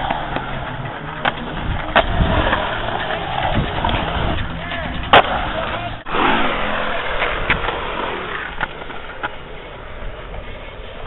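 Skateboard wheels rolling on concrete, with sharp clacks and knocks of the board striking the ground scattered through the clip; the loudest comes about five seconds in. Voices chatter in the background.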